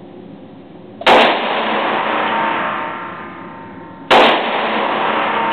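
Two loud pistol shots from a .357 Magnum Desert Eagle, about three seconds apart, each ringing on in the echo of an indoor shooting range.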